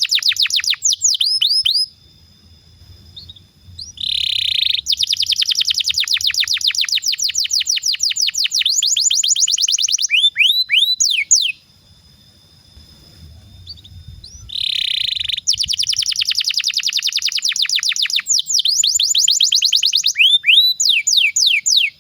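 Domestic canary singing long rolling phrases: rapid trills of quick downward-sweeping notes, each phrase ending in a few slower sweeps, with two short pauses between phrases.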